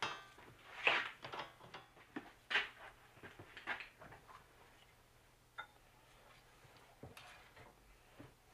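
Scattered light clicks, knocks and rustles of hands working on a small engine that is not running, a few in the first four seconds and fewer after.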